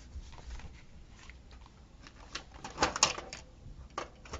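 Paper and sticker sheets being handled on a desk: a quiet start, then a quick cluster of crinkles and taps a little past halfway, and one more tap near the end.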